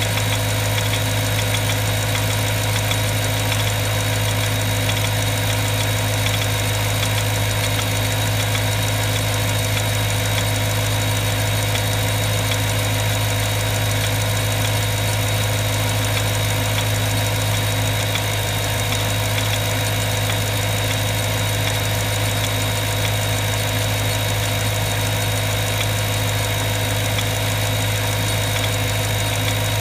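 Water pump running with an odd noise: a steady loud hum with a thin, high steady whine above it.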